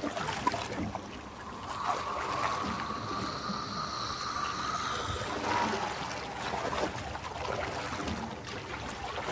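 Sea water splashing and sloshing around a boat, with a faint steady high tone through the first half.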